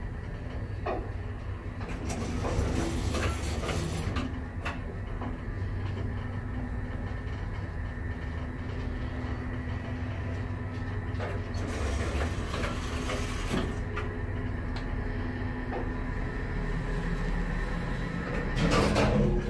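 1954 geared traction elevator car riding in its shaft: a steady low hum and rumble, with scattered clicks and knocks. A louder clatter comes near the end.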